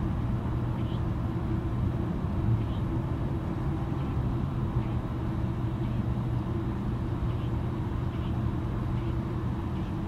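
Distant airliner jet engines running: a steady low rumble with a constant hum underneath.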